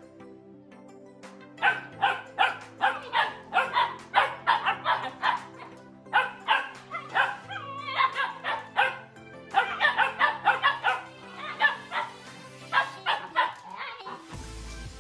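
Korean Jindo puppies barking and yipping in quick, excited runs as they play-fight, starting about a second and a half in, with background music underneath.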